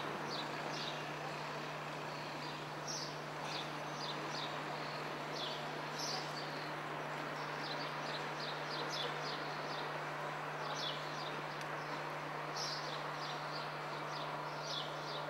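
Steady outdoor town-street ambience with a constant low hum, and small birds giving many short, high, downward-sliding chirps throughout.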